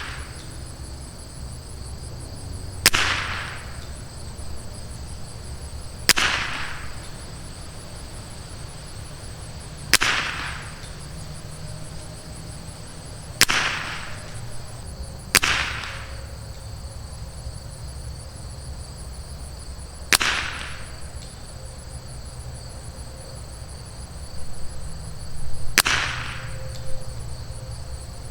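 Seven single .22 LR rifle shots from a Rim-X rifle, fired a few seconds apart while shooting a group, each with a short trailing echo. A steady high drone of insects runs underneath.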